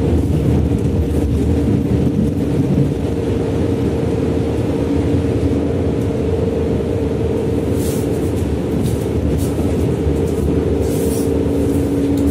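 Heard from inside the car, a Berlin U-Bahn H-series train runs through a tunnel: a loud, steady rumble of wheels on track with two steady whining tones from the drive. Two brief high hisses come near the end.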